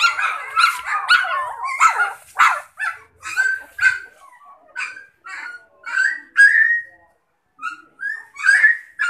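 Central Asian Shepherd puppies yipping and whining: a quick string of short, high yelps, crowded together in the first few seconds, some drawn out into whines, with a brief pause about seven seconds in.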